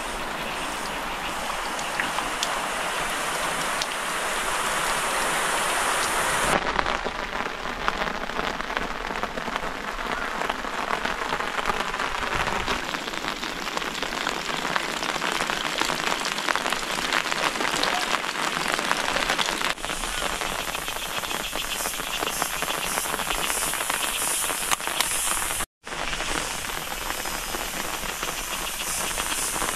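Steady rain falling, with drops pattering on surfaces close by. The sound shifts abruptly a few times as the shots change, and cuts out for an instant near the end.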